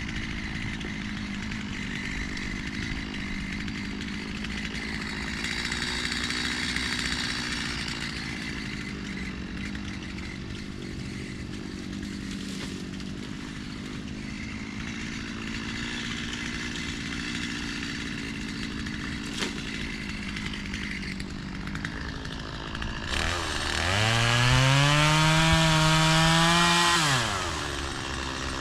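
Chainsaw engine running at idle. Near the end it revs to full throttle with a sharply rising pitch, holds high and loud for about four seconds, then drops back to idle.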